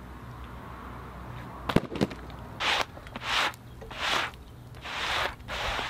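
Two sharp knocks close together, then a gloved hand sweeping sawdust off a freshly chainsaw-milled log face in about five brushing swishes.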